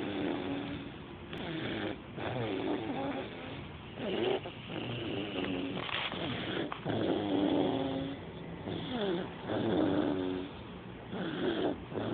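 Snoring: a pitched snore on each breath, repeating roughly every two seconds.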